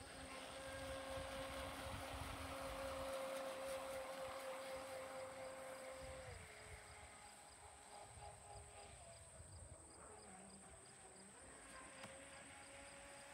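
Faint, steady high-pitched whine of a radio-controlled speedboat's motor running across the water. The pitch drops about six seconds in and rises again near the end.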